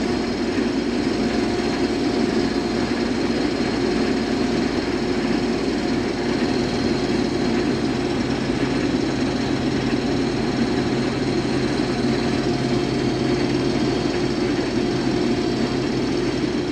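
Case IH 2188 combine running steadily under load while cutting wheat, heard from inside the cab as a dense mechanical din with a steady hum. A deeper hum joins about six seconds in.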